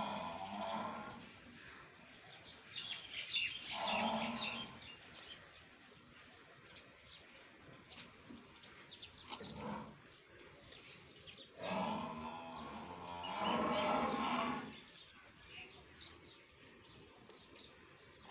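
Dairy cattle mooing, several calls: one at the start, one about four seconds in, a short one near ten seconds, and two long ones in a row from about twelve to fifteen seconds.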